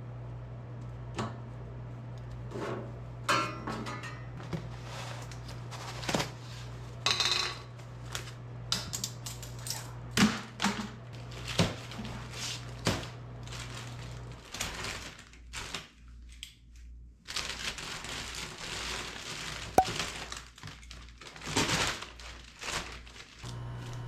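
Irregular knocks, taps and clatter of objects being handled and set down in a workshop, over a steady low hum. The hum stops a little past halfway and comes back near the end.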